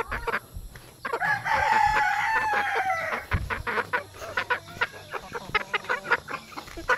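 A rooster crowing once, a long call of about two seconds that falls slightly in pitch, followed by a run of short, sharp clucks and clicks.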